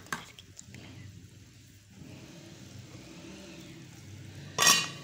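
Low steady background hum, then near the end a short, loud scrape as a metal lid is set on the cooking pot.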